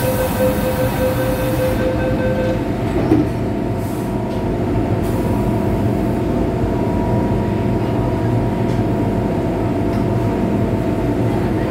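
MTR M-Train doors closing: a rapid string of warning beeps for about the first two and a half seconds, then the doors knock shut about three seconds in. The train's steady equipment hum follows as it stands at the platform.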